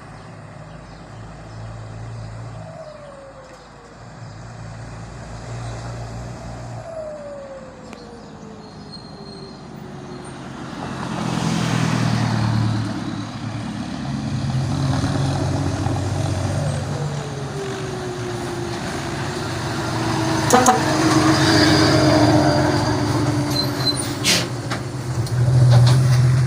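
Truck engine pulling through its gears and growing louder, with a falling whine three times as the revs drop. A few sharp clicks near the end.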